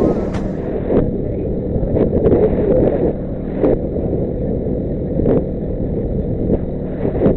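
Motorcycle engine running steadily at cruising speed, with road and wind noise on the microphone and short knocks about once a second.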